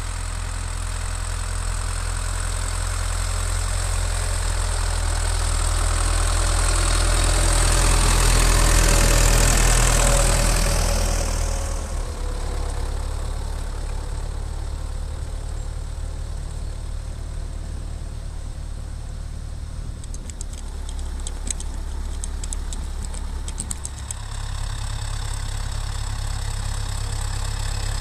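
International Harvester 784 tractor's four-cylinder diesel engine running steadily as it tows a loaded trailer across a field, growing louder toward ten seconds in and dropping off suddenly about twelve seconds in.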